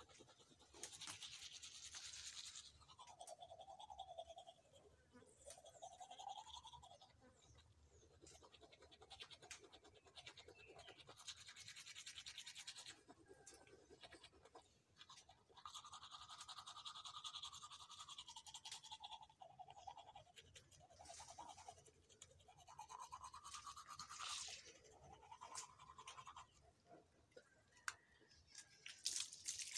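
Teeth being brushed with a toothbrush: faint scrubbing in bursts of a few seconds each, its tone wavering as the mouth changes shape.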